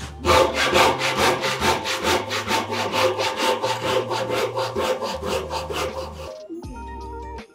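Japanese handsaw cutting through a wooden beam by hand, in quick, even rasping strokes that stop about six seconds in.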